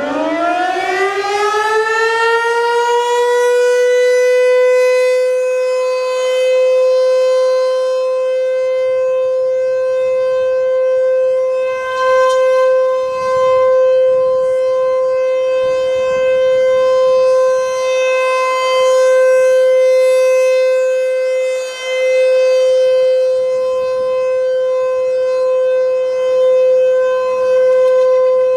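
American Signal T-128 outdoor warning siren winding up from a low growl to a steady single tone, held as the Alert signal. Its loudness swells and fades every few seconds.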